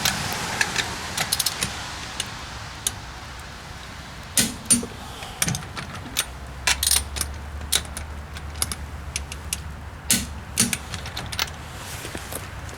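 Irregular sharp metallic clicks and clinks of hand tools, sockets and lug nuts being handled and worked. There is no steady run of an impact wrench hammering.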